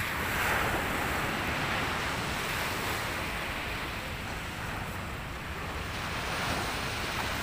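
Sea surf washing onto a beach, a steady rushing that swells shortly after the start and again near the end, with wind on the microphone.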